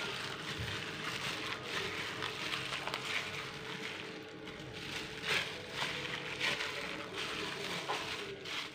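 A plastic-gloved hand kneading sticky pempek dough of ground fish and sago in a stainless steel bowl: irregular strokes of crinkling plastic and dough handling.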